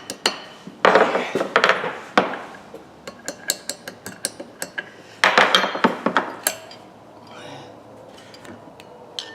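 A small hammer tapping on steel, driving a spring-loaded part into a pipe wrench: runs of quick light taps, about two or three a second, broken by a few louder clattering stretches.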